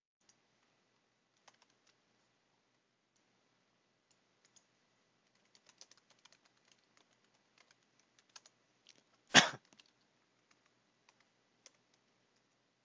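Typing on a computer keyboard: scattered quiet keystrokes with a quicker run of them in the middle, and one much louder knock about nine seconds in.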